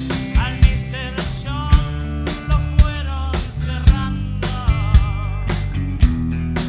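Rock band playing: a drum-kit beat with strong hits about once a second over sustained bass, and a lead line of bending, wavering notes.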